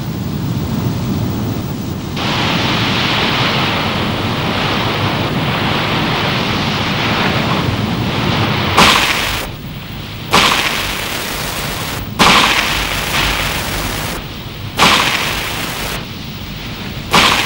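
A steady rushing noise, then, from about nine seconds in, five sharp revolver shots one to two and a half seconds apart, each trailing off.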